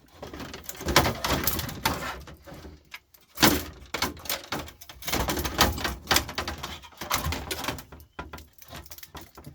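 Plastic front bezel of an LCD monitor being pried off its case by hand: irregular cracking, clicking and creaking of plastic as the clips let go, with sharp snaps about a second in and about three and a half seconds in.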